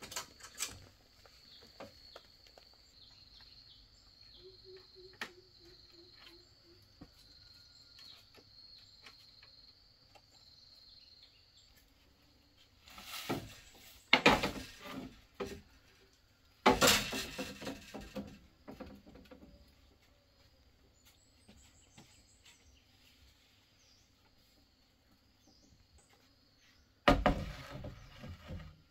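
A steady, high insect drone fades out about a third of the way through, over a quiet outdoor background. Three loud bursts of clattering and knocking come about halfway through, a little later, and near the end.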